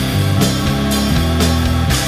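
Rock music with guitar and drums, a bass line and a steady beat.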